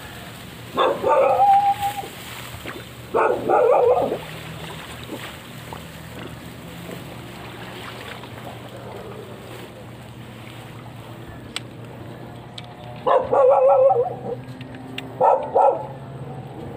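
A dog barking in four short bouts, two near the start and two near the end.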